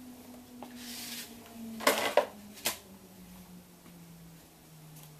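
Items being handled and packed back into a cardboard box: a short rustle about a second in, a louder clatter of knocks around two seconds in, then a single click.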